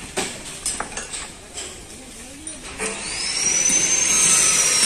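A few light metal knocks and taps, then about three seconds in a power tool starts up and runs with a high whine that climbs in pitch and then sags slightly.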